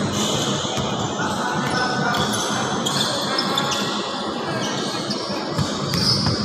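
Basketball game sounds: a basketball bouncing on the court and short, high sneaker squeaks, over a steady background of voices in the gym.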